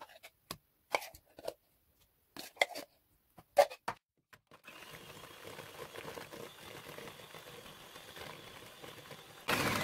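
A few light knocks and scrapes as thick coconut milk is spooned into a plastic bowl of creamed butter and sugar. About four and a half seconds in, a Bluesky electric hand mixer starts and runs steadily, beating the mixture, and gets louder near the end.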